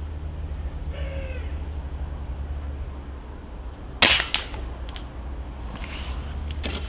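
A single shot from a Stoeger XM1 S4 Suppressor, a suppressed 4.5 mm PCP air rifle, about four seconds in: a sharp crack followed a moment later by a second, shorter click.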